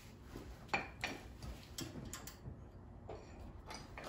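A handful of faint, irregular metallic clicks and light taps from tools and hardware being handled at a UTV's front suspension, the loudest just under a second in.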